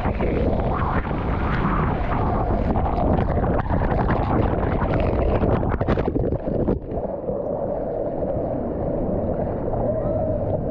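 Water slide ride: rushing water and wind with many knocks and rumbles as a rider slides down the slide. About two-thirds of the way through, the sound turns suddenly duller and muffled.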